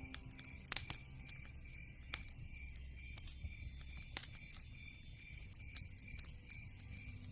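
Wood fire crackling in a fireplace, with irregular sharp pops and snaps, a few of them louder.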